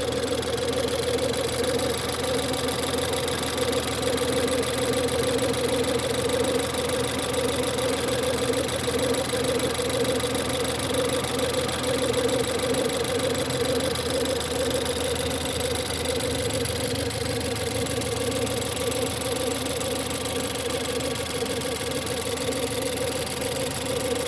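Ford 1.6 EcoBoost turbocharged four-cylinder petrol engine idling steadily after a cold start, with a constant howling, whining note over the idle.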